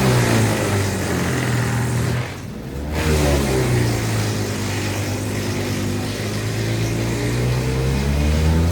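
Wood chipper's engine running under load, its pitch sagging and recovering as wet, freshly cut thuja is fed through, with a steady noisy shredding over it. A little over two seconds in the sound briefly drops and thins, then comes back.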